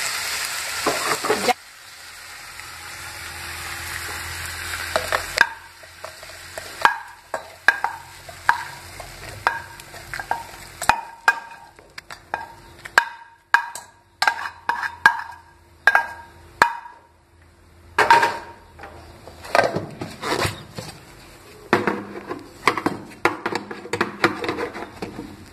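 Hot oil sizzling under the fried onion-tomato masala in the pan for about the first second and a half. Then a metal spoon scrapes and clinks against the pan and a stainless steel mixer-grinder jar as the masala is spooned in: a long irregular run of sharp clicks and knocks, many with a short metallic ring. Near the end come denser scrapes and knocks as the jar is set on the grinder base.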